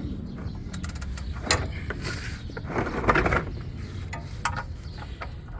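Scattered clicks, knocks and a scrape of a hand tool working on the oil drain plug under the truck as the plug is tightened. A longer rasping patch comes about three seconds in.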